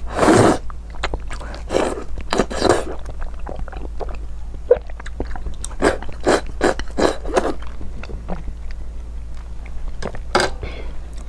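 Close-miked eating sounds: a loud slurp as a piece of food is sucked in right at the start, then irregular wet chewing, lip smacks and slurping from a plate of sauce. A steady low hum lies underneath.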